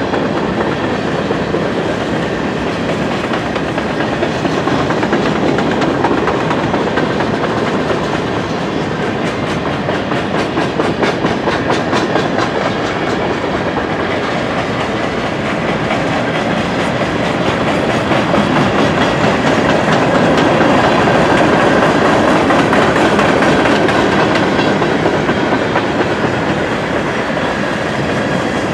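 A long freight train's boxcars and centerbeam flatcars rolling past: a steady rumble and clatter of steel wheels on rail, with a clicking of wheels over the rail joints. It grows a little louder past the middle.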